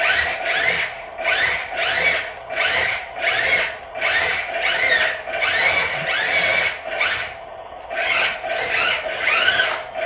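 Rhythmic rasping strokes repeating about three times every two seconds, each with a sweeping pitch, over a steady hum.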